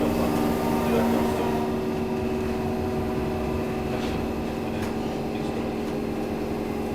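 Class 319 electric multiple unit on the move, heard from inside the carriage: a steady hum of motors and running gear with several constant low tones over wheel and rail noise, and two faint clicks around the middle.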